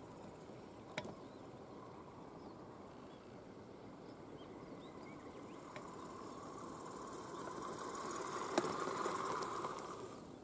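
DEERC 9200E radio-controlled monster truck's electric motor and drivetrain whining as it drives over grass, growing louder over the last few seconds as the truck comes close, then dropping away near the end as it stops. A sharp click about a second in, and another, the loudest sound, near the end.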